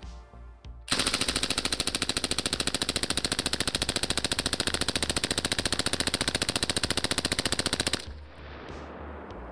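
Belt-fed 5.56 light machine gun with a HUXWRX Flow 556K suppressor firing one long full-auto burst of about seven seconds at roughly 847 rounds per minute. The burst starts about a second in and cuts off suddenly.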